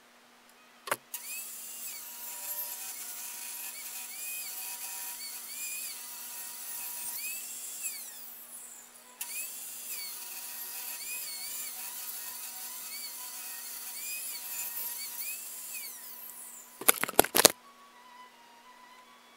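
Benchtop table saw ripping a 2x4 lengthwise: its high motor whine dips and recovers again and again as the blade bites the wood, in two long stretches with a short break about eight seconds in. A few loud knocks near the end.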